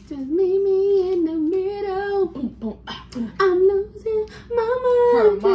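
A woman's voice singing a wordless tune in long held notes: one drawn-out note over the first two seconds, then a few shorter, slightly higher ones.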